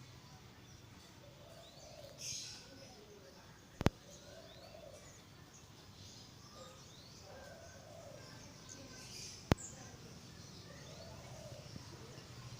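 Faint, repeated high calls from a kitten, with small chirps above them. Two sharp clicks cut in, about 4 seconds in and again near 9 seconds.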